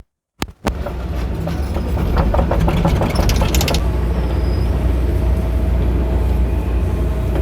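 John Deere excavator's diesel engine running steadily, heard from inside the cab, with a run of rapid clicks and clinks from about a second and a half to four seconds in as the bucket digs. The sound drops out for about half a second right at the start.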